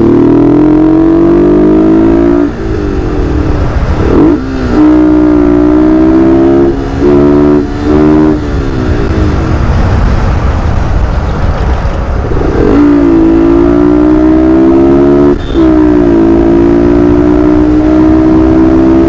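Motorcycle engine running loud, its pitch climbing and dropping as the throttle is worked, with several short breaks where it is shifted or let off and a quieter stretch in the middle.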